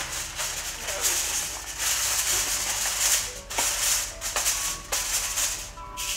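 Aluminium foil crinkling and crackling as hands press and smooth it over a dish, in uneven rustling bursts.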